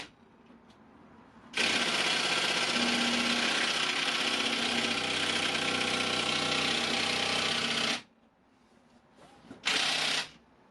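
Power impact wrench hammering at a seized nut for about six seconds, then one short burst near the end; the nut does not come undone.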